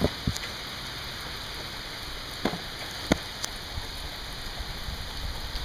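Steady rain falling, with a few sharp taps standing out from the patter, the loudest about three seconds in.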